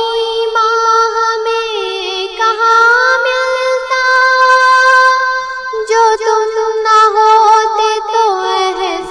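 A high solo voice singing a naat, drawing out long held notes and slow glides between them without words.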